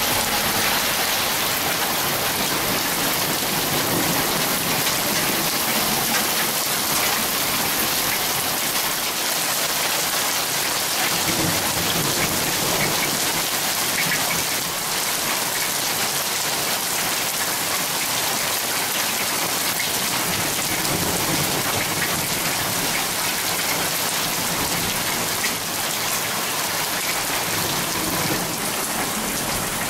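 Heavy downpour of thunderstorm rain falling steadily onto a paved yard and street, a dense even hiss.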